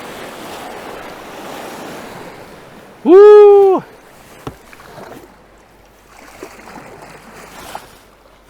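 Rushing water of a small river rapid with wind on the microphone, then just after three seconds in a single loud whoop-like voice call lasting under a second, followed by a sharp knock and quieter splashing.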